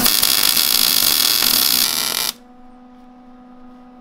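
MIG welder arc crackling steadily while laying a short bead on steel, cutting off suddenly a little over two seconds in. A steady low electrical hum carries on underneath.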